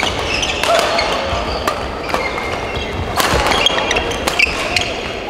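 Badminton racket hits on shuttlecocks at irregular intervals in an echoing sports hall, with short high squeaks of court shoes.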